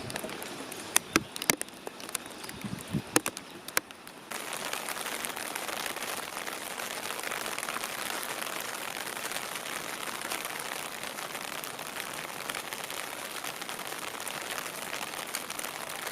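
Steady rain falling, with irregular sharp ticks and drips for the first four seconds, after which it settles into an even hiss.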